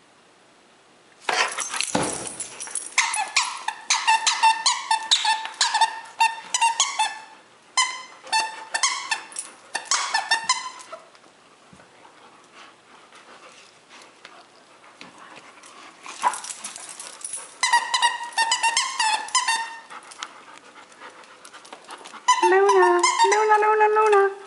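A dog chewing a rubber squeaky toy, squeaking it over and over in quick runs of short squeaks, after a thump a little over a second in. Near the end comes one longer, lower, wavering squeal.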